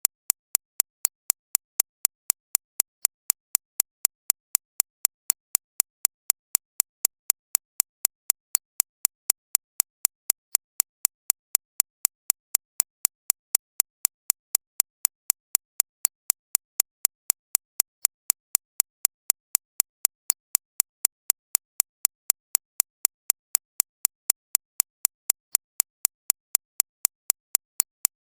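Synthetic recreation of a shockwave therapy (ESWT) machine's impact pulses: sharp, high-pitched clicks repeating evenly at about three a second. They are tuned to sit mainly in the upper treble, 6.5 to 13.5 kHz, as a tinnitus masking sound.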